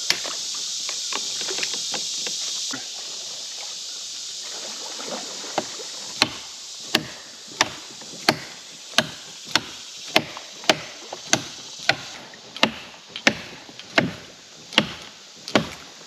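Chopping blows with a hand tool against a tree limb: sharp cracks in an even rhythm, about three every two seconds, starting about five seconds in. The limbs are being cut away to clear a path for the kayak.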